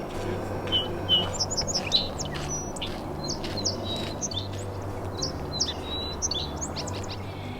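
A chorus of many small songbirds chirping and calling in quick, overlapping short notes, over a low steady hum.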